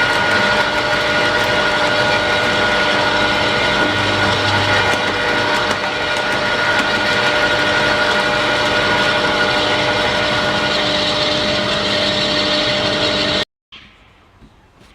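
Ryobi chipper shredder's motor running steadily with a constant whine, then cut off abruptly near the end.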